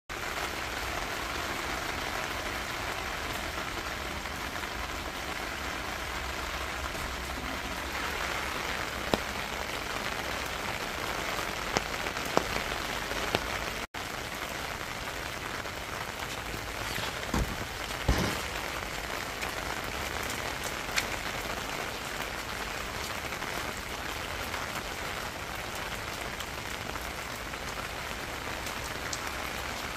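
Steady rain falling on hard surfaces, with a few sharp drips or knocks scattered through. It cuts out for an instant about halfway through.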